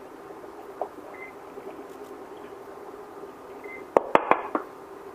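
Utensils knocking on a metal saucepan while flour is tipped in and stirred for choux dough: a quick run of five or six sharp clicks about four seconds in, after a single faint tick, over a steady low hum.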